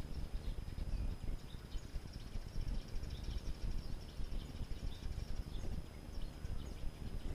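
Small birds chirping and twittering in short calls throughout, with a rapid run of repeated high notes through the middle, over a low fluctuating rumble of wind on the microphone.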